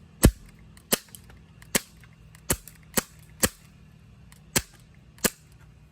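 CO2 airsoft pistol firing eight sharp shots in quick, uneven succession. The gun is acting up, and some shots fire without sending a BB; the jams are caused by a burr of metal in the magazine.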